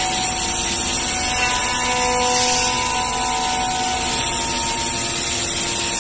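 Pade Velox 5-axis CNC machining centre running, its spindle cutter milling wood: a steady hiss with several steady whining tones that come and go.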